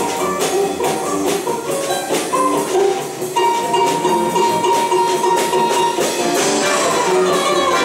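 Russian folk-instrument orchestra of domras and balalaikas, with a solo domra and a guitar, playing a swing jazz tune: quick plucked notes at first, then a long held high note from about three seconds in, and a wavering melody line near the end.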